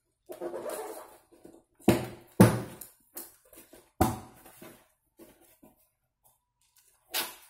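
Cardboard laptop box being cut open and handled: scraping and rustling of the cardboard with several sharp knocks, the loudest two about two seconds in, then a pause before another knock near the end.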